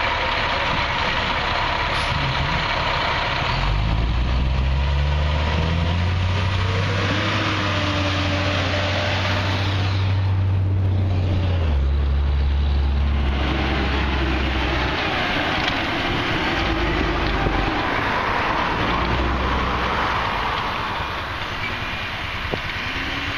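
Fire truck engine running. It revs up in a few steps about four seconds in, holds steady, and dies away about fifteen seconds in, over a steady background hiss.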